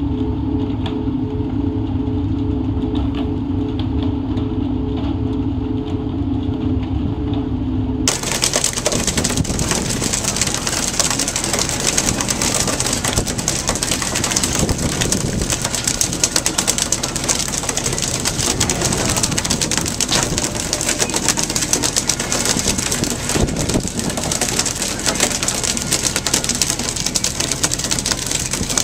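A ship's engine hum, steady and even, then an abrupt change to a loud rush of wind and sea noise with dense crackling patter across it.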